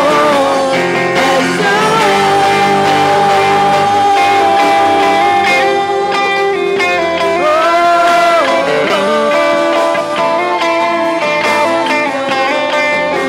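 Worship band music, guitar-led, with a long melody line held and bent in pitch over the band.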